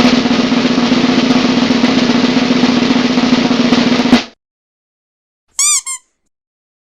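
Drum roll sound effect: a snare drum rolling steadily for about four seconds and ending with a final hit. About a second and a half later come two short chirps, each arching up and down in pitch.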